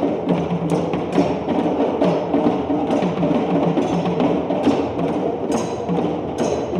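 Music: a moving melody in the low-mid range over percussion, with sharp taps every half second to a second.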